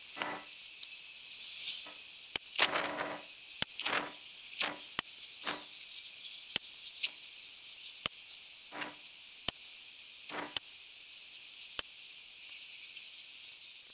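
Kral Puncher Pro .177 PCP air rifle being fired shot after shot: about fifteen sharp cracks at irregular intervals of roughly a second, some crisper and some duller, over a steady high hiss.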